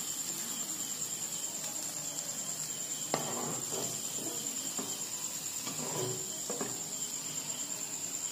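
Perforated steel slotted spoon knocking and scraping against a kadai as fried fritters are lifted out of the oil, a sharp clink about three seconds in and a few lighter knocks around five to six and a half seconds. A steady high-pitched trill runs underneath.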